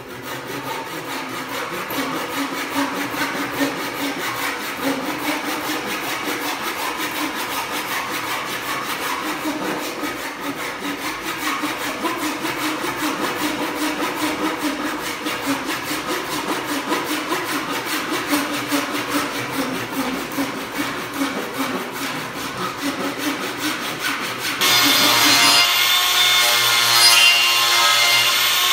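Oak wood being sawn, a steady, noisy cutting sound. About 25 seconds in it gives way to a louder, brighter sound with a steady whine, a power tool working the wood.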